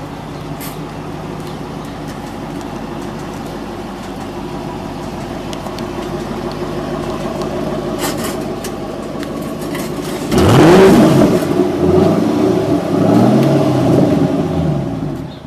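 Ford Mustang GT California Special's 4.6-litre V8 idling steadily through its exhaust. About ten seconds in, it is revved several times in quick succession, the pitch rising and falling with each rev.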